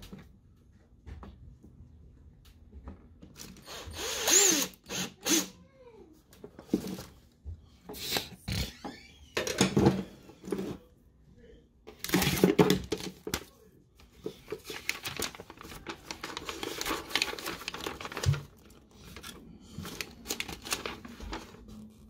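Cordless drill/driver run in several short bursts, its small motor speeding up and slowing down, with tool handling on the bench between them and a longer stretch of rustling near the end.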